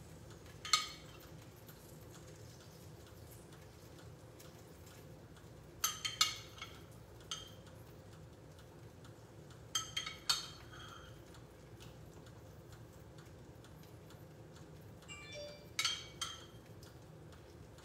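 A metal spoon clinking against a glass jar of marinara sauce as sauce is scooped out, in four short bouts of clicks with a brief ringing, several seconds apart.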